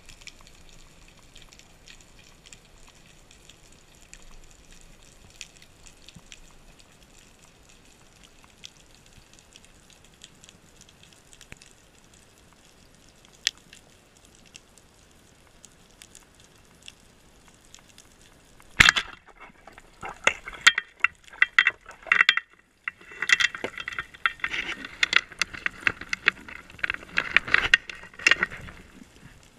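Underwater sound at a speargun-mounted camera: a faint, steady crackle of small clicks. About two-thirds of the way in comes a sudden knock, then loud bubbling and water rushing past the camera, with a brief pause in the middle, until just before the end.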